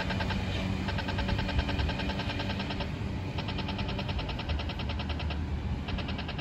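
Accessible pedestrian crossing signal ticking rapidly, about ten ticks a second, in bursts of about two seconds with short breaks, over the low hum of street traffic.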